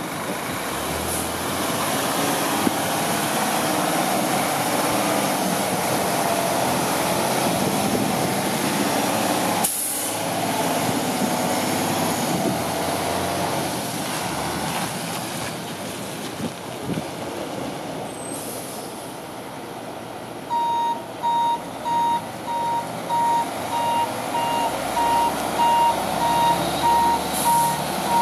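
Sterling L9500 tri-axle flatbed truck's diesel engine running as it drives, with a short air-brake hiss about a third of the way in. In the last third its reverse alarm beeps steadily, about once a second, as the truck backs up.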